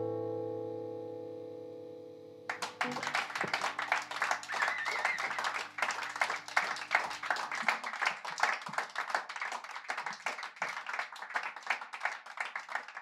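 The last guitar chord of a song rings and fades away. About two and a half seconds in, an audience starts applauding, and the clapping runs on.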